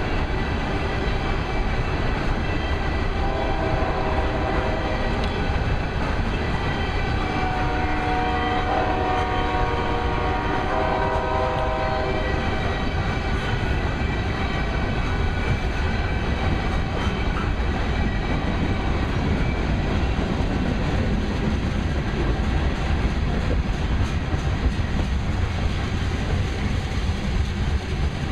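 A freight train of loaded gondola cars rolling past, with a steady rumble and clatter of steel wheels on the rails. From about three seconds in to about twelve seconds in, a multi-tone train horn sounds in several blasts over it.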